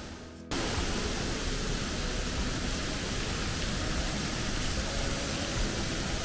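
Steady rushing of a mountain river in a gorge, a dense even roar of water that comes in abruptly about half a second in.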